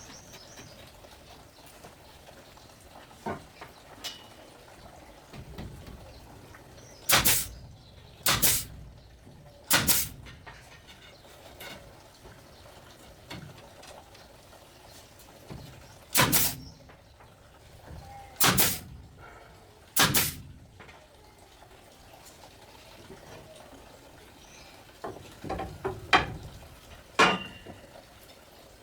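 Sharp knocks or strikes: six loud ones in two groups of three, each group about a second and a half apart, then a few lighter knocks near the end.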